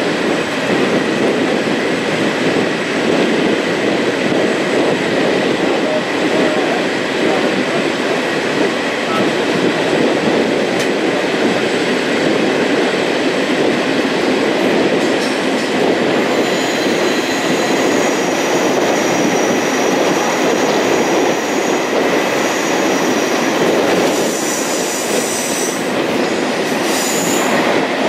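Passenger train heard from on board, running along the track with a steady rumble of wheels on rail. From about halfway in, thin high-pitched wheel squeal joins it, loudest over the last few seconds.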